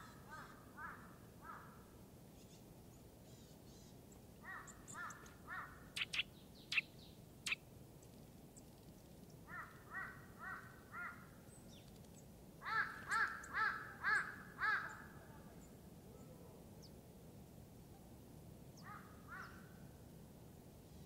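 A bird calling in repeated bouts of two to five short calls, about two calls a second, with the loudest bout just past the middle. A few short, sharp clicks come between the early bouts.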